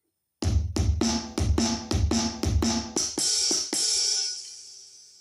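Electronic drum sounds from a Roland SPD-20X percussion pad: a quick fill of about a dozen kick, snare and tom hits, ending on a cymbal crash that rings and fades. The pad is producing sound, the no-sound fault apparently cured.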